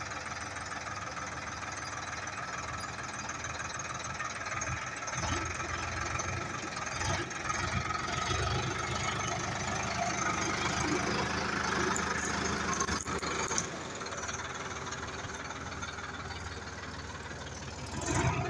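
Sonalika tractor's diesel engine running steadily, getting louder for several seconds through the middle and then settling back. A brief louder noise comes right at the end.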